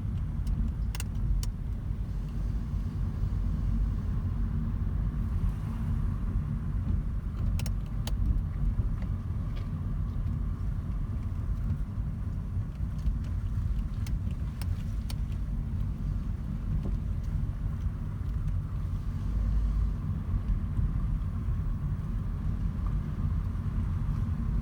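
2010 Mazda 3 driving with a steady low road rumble, broken by a few sharp clunks at irregular moments. The clunks are the suspension noise that comes only when turning left over bumps.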